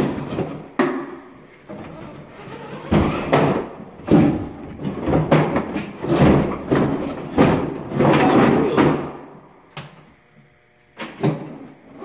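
Hollow plastic clunks, knocks and scraping of a child's Spider-Man Power Wheels ride-on quad being hauled and tipped out through a storage unit doorway, its plastic wheels dragging on a concrete floor. The clatter is loud and irregular, quiets briefly near the end, and then comes a single knock.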